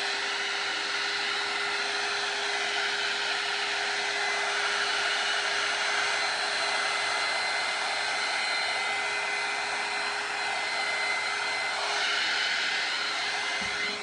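Handheld heat gun running steadily, a blowing whir with a steady hum, held over wet poured acrylic paint to pop air bubbles.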